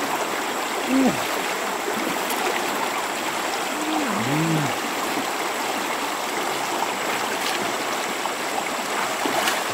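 Shallow stream water rushing steadily over rocks and through the slats of a bamboo fish trap.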